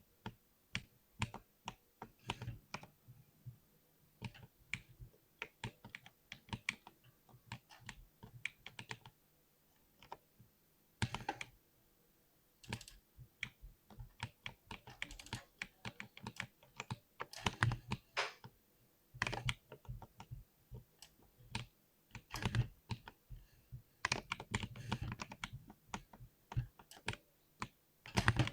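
Typing on a mechanical keyboard with Cherry MX switches: irregular runs of key clacks, broken by a few short pauses.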